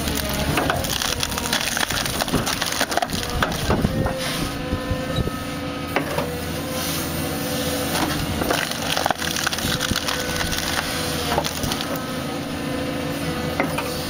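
Excavator engine and hydraulics running steadily while its claw attachment bites into a tree stump, with repeated sharp cracking and splintering of wood as the stump splits.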